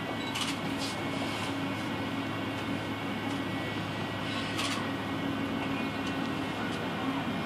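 Steady hum and rumble inside a moving cable car cabin, with a low, even drone and a couple of brief hisses, one near the start and one a little past halfway.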